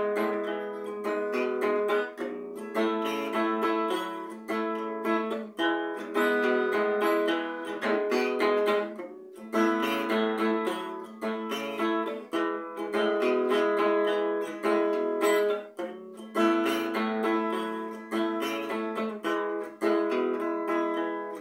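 Solo nylon-string classical guitar strummed in a steady rhythm, with chords and picked notes and no voice: an instrumental break in a song.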